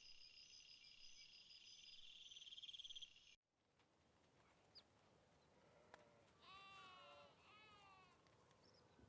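Faint outdoor ambience: steady insect chirping that cuts off abruptly about a third of the way in. Then, after a few faint clicks, an animal gives two drawn-out, wavering calls.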